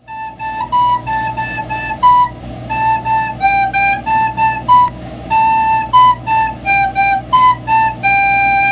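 Soprano recorder playing a simple melody of short, tongued notes over a few neighbouring pitches, with some breath hiss, ending on a longer held lower note.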